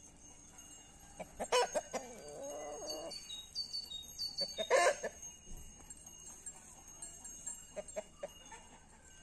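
Chickens clucking, with two louder sharp calls, one about a second and a half in and one nearly five seconds in, and a few short high chirps between them.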